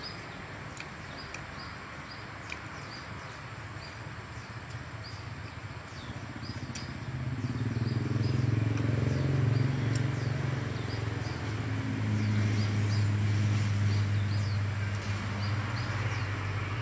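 A low engine rumble, swelling from about seven seconds in and holding steady, over a background hiss. Short high chirps, about two a second, repeat throughout.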